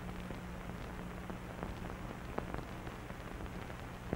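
Background noise of an old film soundtrack: steady hiss over a low hum, with scattered faint clicks and crackles, one a little louder about halfway through.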